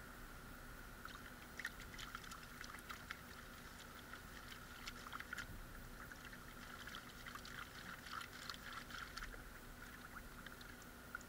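Water sloshing and splashing irregularly as a plastic gold pan is swirled and dipped in a tub of water, washing the light sand out over the rim.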